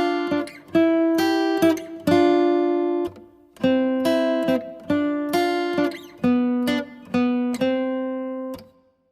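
Acoustic guitar background music: strummed chords, about a dozen strums, each ringing and fading. The music stops shortly before the end.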